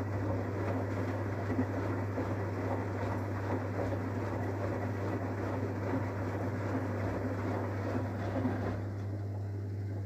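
Samsung WW80CGC04DAELE front-loading washing machine in the wash tumble of a bedding load: wet laundry and soapy water slosh in the turning drum over a steady low hum. The sloshing drops away near the end as the drum comes to a stop.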